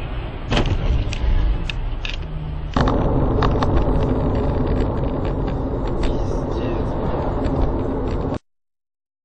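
Dashcam recording of the inside of a moving car: steady tyre and engine rumble with scattered clicks and knocks. It jumps louder about three seconds in and cuts off suddenly near the end.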